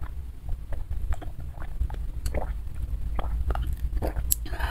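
Close-miked drinking from a glass of cold milk drink: small wet sips and swallowing clicks scattered every half second or so, over a steady low hum.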